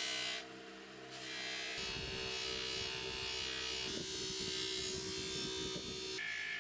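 A small electric power tool buzzing and rasping against a workpiece in spells: briefly at the start, then for about five seconds, stopping suddenly near the end.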